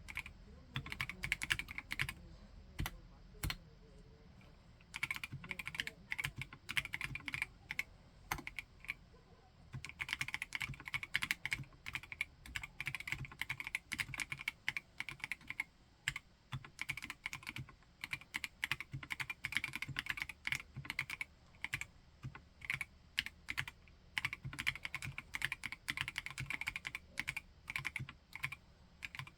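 Typing on a mechanical keyboard with a silicone housing (HIBI June) and NK Silk switches: runs of quick keystrokes, with a couple of brief pauses between runs.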